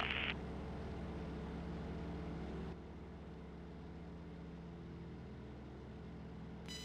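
Microlight trike's engine running steadily at taxi power, its pusher propeller turning, heard muffled as a low drone. It gets quieter about three seconds in.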